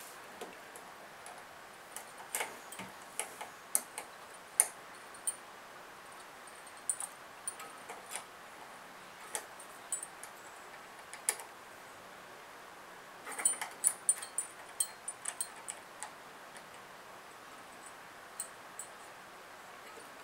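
Irregular sharp small clicks and taps of metal tools and small parts being handled while working inside a pinball machine, with a quick flurry of clicks about two-thirds of the way through.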